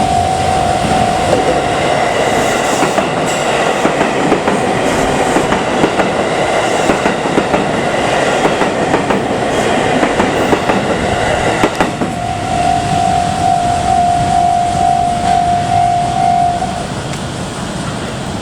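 Level crossing alarm ringing, then a Haruka limited express electric train running across the crossing, its wheels clicking over the rail joints for about ten seconds. Once the train has cleared, the alarm rings alone again and stops near the end.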